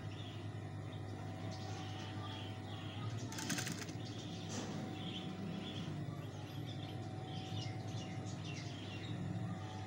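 Birds chirping in the background over a steady low hum, with a short rattle about three and a half seconds in.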